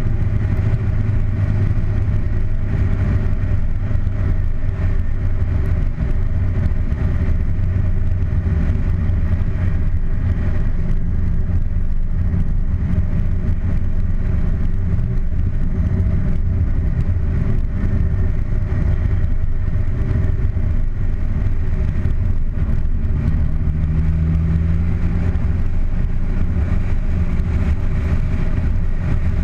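Car engine running steadily on the move, with road and wind noise, picked up by a camera mounted outside on the car's bonnet.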